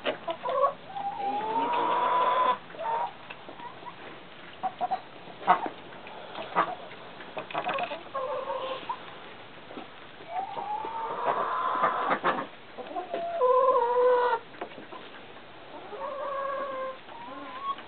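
Chickens calling: two long drawn-out calls that rise and then hold, one near the start and one about two-thirds of the way through, with shorter calls after them. Scattered sharp knocks and clicks fall between the calls, the loudest about five seconds in.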